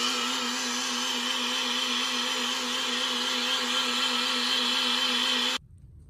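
Electric kitchen blender running at a steady pitch, blending mung beans in pennywort juice, then switched off abruptly about five and a half seconds in.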